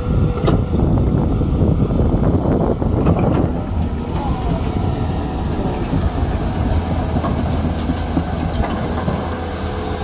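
Cat 320 hydraulic excavator working: its diesel engine runs steadily under load while the arm digs and swings, with sharp knocks of the steel bucket against the soil about half a second in and around three seconds in.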